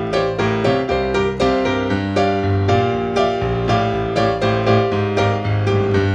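Yamaha digital stage piano playing an instrumental blues piano passage: chords struck at a steady rhythm over a bass line, with no singing.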